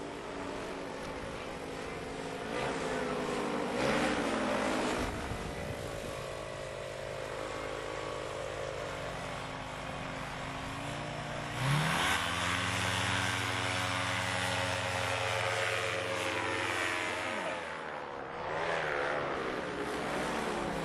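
Paramotor engine and propeller running with the throttle worked up and down: short revs a few seconds in, then a sharp climb to high revs about twelve seconds in, held for about six seconds before easing off, and another rise near the end.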